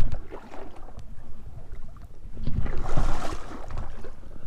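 Lake water splashing and sloshing, loudest in a swell about three seconds in, over a low rumble of wind and handling noise on the microphone.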